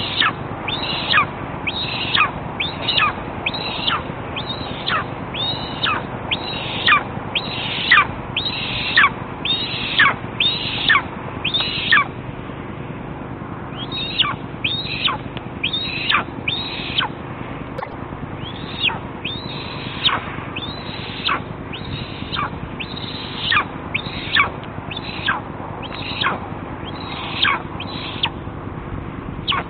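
Young eastern imperial eagle begging for food: a long run of thin, down-slurred calls, a little more than one a second, with a short break about twelve seconds in.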